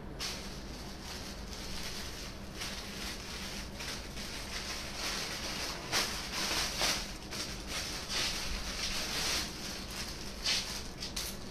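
Rustling and handling noise of a blouse being picked up and unfolded, in irregular bursts with the loudest rustles about six to seven seconds in and again near ten and a half seconds, over a steady low hum.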